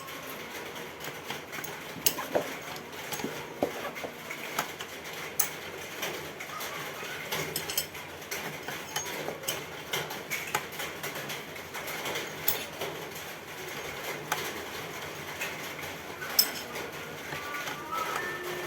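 Hand tools and metal car parts clinking and clicking at irregular intervals, with a few sharper metallic knocks, during work on a rear shock absorber.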